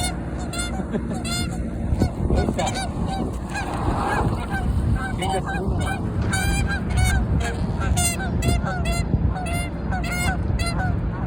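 Canada geese honking over and over in quick succession, the calls of geese in a territorial dispute.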